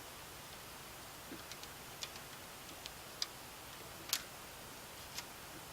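Scattered light clicks and taps of a screwdriver and plastic fan filter being worked onto a 120 mm PC case fan, irregular and a second or so apart, with one sharper click about four seconds in.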